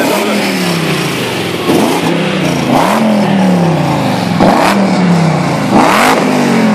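BMW E30's swapped-in V8 engine idling and being revved in short blips about four times, each rev rising quickly and dropping back to idle.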